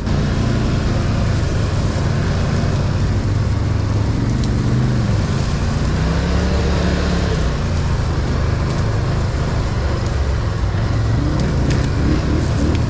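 Quad bike (ATV) engine running under throttle as the quad is ridden, revs rising and falling about halfway through.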